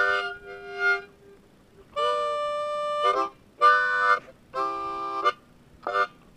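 A C harmonica played in a string of about six blown chords and notes with short gaps between them, the longest held about a second, some ending in a slight bend. These are tongue-blocking attempts, the tongue covering some holes so fewer reeds sound.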